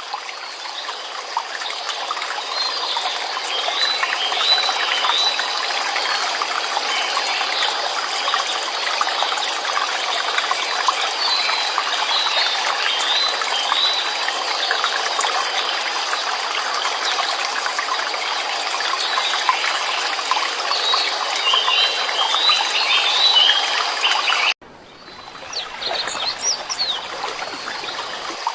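Running water babbling steadily, with small birds chirping in short bursts now and then over it. Near the end it cuts suddenly to a quieter passage with a few higher chirps.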